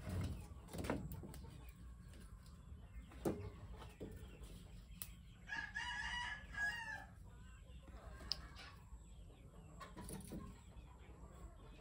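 A rooster crows once, about six seconds in, one drawn-out call lasting about a second and a half. Around it come a few short knocks and clatters of dry sticks being pushed into a wood-fired stove.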